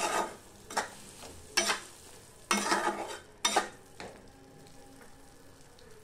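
Spatula stirring and scraping softened onions and tomatoes around a kadhai, a series of separate strokes that stop about four seconds in.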